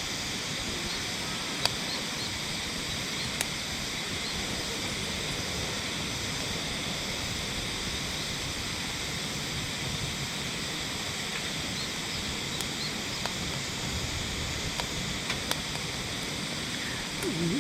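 Steady rush of a nearby river's flowing water, with a few sharp single clicks scattered through.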